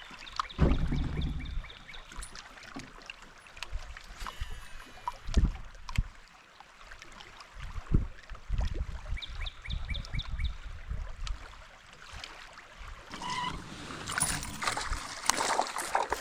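Knocks and bumps on a plastic fishing kayak's hull with water moving around it, a short run of quick ticks about two-thirds of the way in, and a louder hissy stretch near the end.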